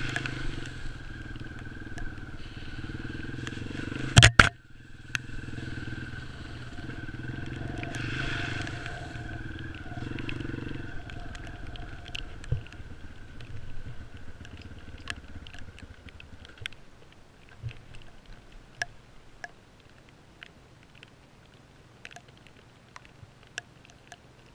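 Dirt bike engine running on a muddy trail, with one loud knock about four seconds in. After about eleven seconds the engine sound falls away, leaving scattered sharp ticks.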